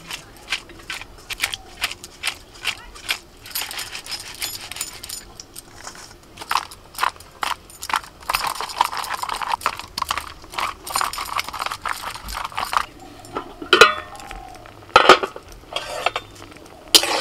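Repeated light clinks and taps of metal kitchenware being handled, such as a steel colander and utensils, with a few louder knocks near the end.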